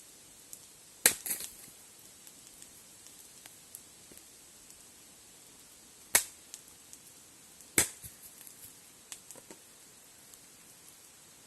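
Campfire crackling: wood burning with a few sharp, loud pops about a second in, around six seconds and near eight seconds, and fainter scattered ticks between them.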